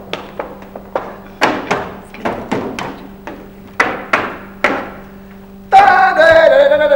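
Sharp knocks of feet stamping and stepping on a hollow wooden stage platform, two to three a second at uneven spacing. Near the end a loud voice cuts in.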